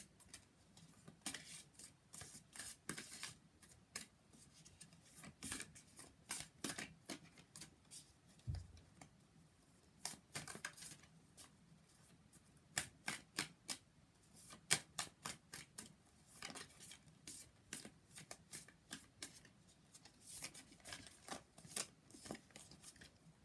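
A deck of oracle cards shuffled by hand, the cards sliding and snapping from one hand into the other in quick runs of soft clicks with short pauses between runs.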